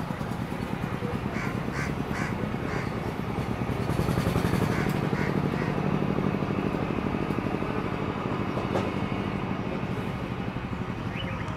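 ATR 42-500 turboprop airliner's two Pratt & Whitney PW127 engines and propellers droning steadily with a low hum as it climbs away after takeoff, swelling slightly around the middle. A bird gives short calls in quick groups of three or four during the first half.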